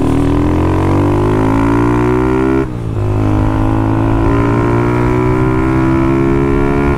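Honda CG 160 Start's single-cylinder engine through a Fortuna aftermarket exhaust, pulling hard with its pitch rising. About two and a half seconds in it drops briefly for an upshift, then climbs again more slowly in the next gear.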